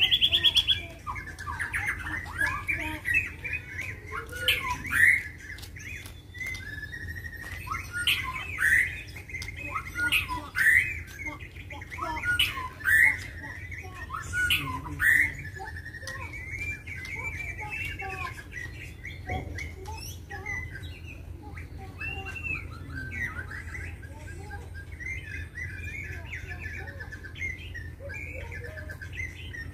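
White-rumped shama (murai batu) singing a varied run of whistled and chattering phrases. Loud sharp notes stand out every couple of seconds through the first half, then the song goes on softer and more continuous.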